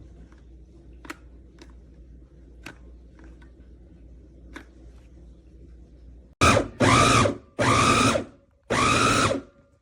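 Electric food chopper's 450 W motor run in short pulses: four bursts in the last three seconds, each spinning up and winding down again, after a few faint clicks.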